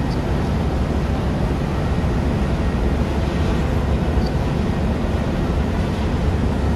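Steady loud drone of a ship's engine-room machinery running.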